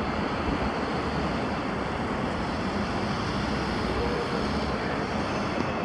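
Boeing 787 Dreamliner's twin jet engines at takeoff power during the takeoff roll: a steady, even rushing drone that holds level throughout.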